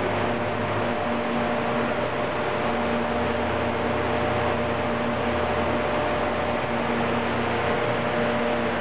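Industrial thermoformer's cooling fans blowing steadily during the cool-down stage of its forming cycle, a constant rush of air over a machine hum; the low hum shifts about a second in.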